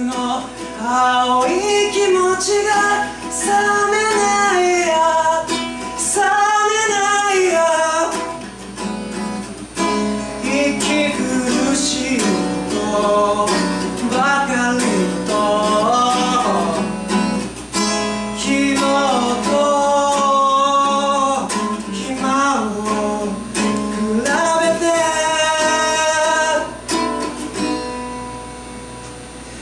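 A man singing a slow song live, accompanying himself on a small acoustic guitar, with held notes that waver in pitch. The music grows quieter near the end.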